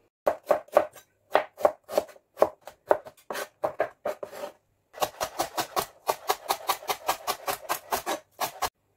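Chef's knife chopping on a plastic cutting board: uneven strokes at first, then from about five seconds in a fast, even run of about five cuts a second, slicing lemongrass into rounds.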